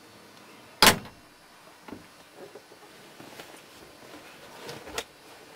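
A single loud bang about a second in, then a few faint knocks and clicks.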